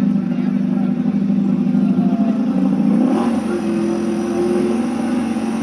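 An engine running steadily with a constant low hum, its pitch rising about three seconds in and then holding higher.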